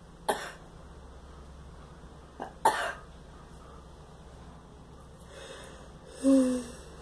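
A girl coughing in three short bouts: a single cough, then two quick coughs about two and a half seconds in, and a louder cough with some voice in it near the end.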